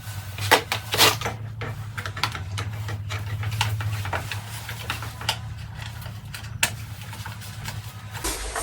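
Irregular clicks, taps and clinks of small metal parts and tools being handled, over a steady low hum that stops near the end.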